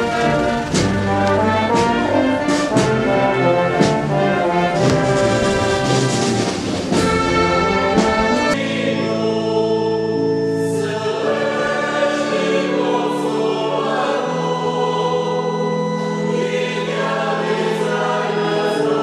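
A brass band playing, with regular beats. About eight and a half seconds in it gives way to a choir singing slow, long held notes.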